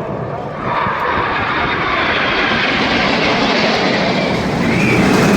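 Aircraft engine noise from a plane flying past: a loud, steady rushing roar that grows a little louder under a second in.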